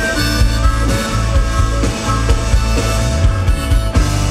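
Live blues-rock band playing: a harmonica blown into a microphone over electric guitar, bass guitar and a drum kit keeping a steady beat.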